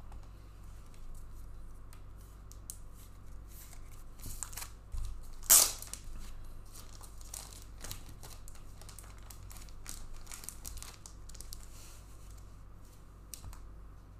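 Trading-card packaging being torn open and handled: a run of crinkling and small clicks, with one loud sharp rip about five and a half seconds in.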